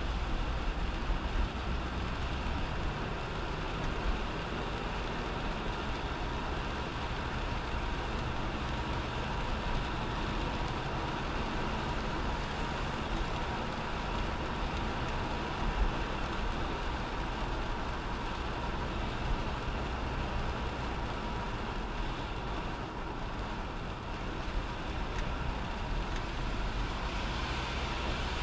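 Steady road and engine noise from a car being driven, with a low rumble and no sudden events.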